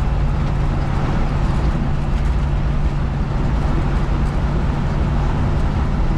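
Steady driving noise inside the cab of a 1973 Chevy C20 pickup at road speed: a low drone with road and wind noise over it. The noise is not too bad but still louder than wanted, with sound deadening mat on the floor but the door panel off, the dash out and no window seals, all of which the driver takes to be adding to it.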